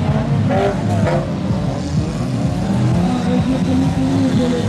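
A pack of stock cars racing, several engines revving at once with overlapping rising and falling notes.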